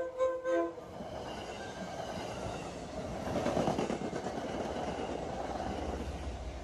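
MBTA commuter passenger train passing close by at about 65 mph, cab car leading and HSP46 diesel locomotive trailing: steel wheels rumbling and clattering over the rails, building to a peak about three and a half seconds in. Background music plays briefly at the start.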